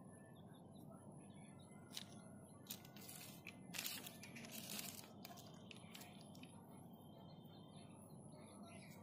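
Quiet rustling and clicking of small plastic toy vehicle parts being handled on a printed bag, with a louder crinkle about three to five seconds in, over a low steady background hum.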